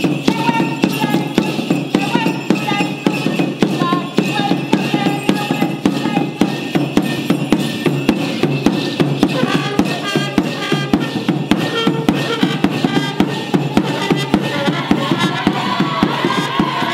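Mapuche kultrun drums beaten in a steady, quick rhythm for a purrun dance, with a pitched melody line over the beat.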